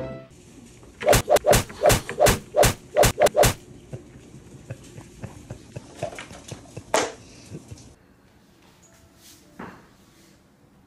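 A dog barking, a quick run of about nine sharp barks, then a single bark a few seconds later.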